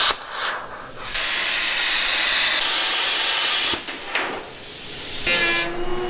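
Plasma cutter cutting through sheet metal, a loud steady hiss in runs that start and stop abruptly: one ends just after the start, another lasts about two and a half seconds, and a third begins near the end.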